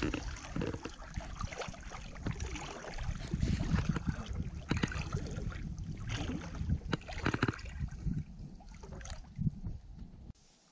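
Rain and wind buffeting the microphone, with many small sharp taps of drops and water lapping against an inflatable float tube. The sound cuts off abruptly near the end.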